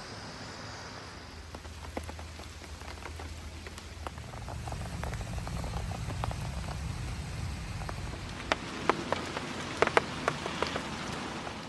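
Rain pattering on a polycotton (TC) tarp: a steady hiss with scattered drop ticks, which grow sharper and louder over the last few seconds.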